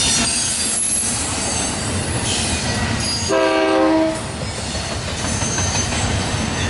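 Double-stack intermodal freight cars rolling past with a steady rumble of wheels on rail and a thin, high wheel squeal. About three seconds in comes one short horn blast, a chord of several tones lasting under a second.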